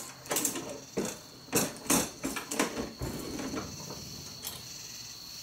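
Dillon RL 550B progressive reloading press being worked by hand: a quick series of sharp metal clicks and clacks from the handle stroke, shell plate and cases, mostly in the first three seconds.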